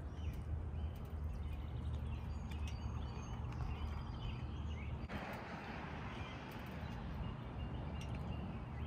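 Outdoor ambience: small birds chirping now and then over a steady low rumble, with a broader hiss coming up about five seconds in.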